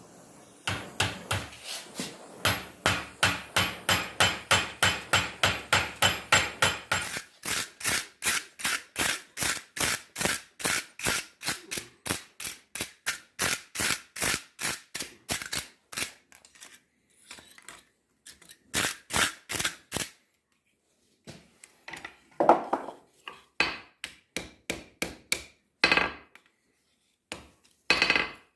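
Hand hammer striking hot steel on an anvil: a steady run of blows at about three a second, then shorter bursts of quick strikes with pauses between them in the second half.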